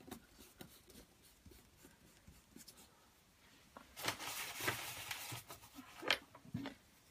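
Handling sounds of paper craft: faint rustles and small taps as tissue paper is pressed over card. About four seconds in comes a louder rustle lasting a second or so, then a sharp click and a dull knock near the end.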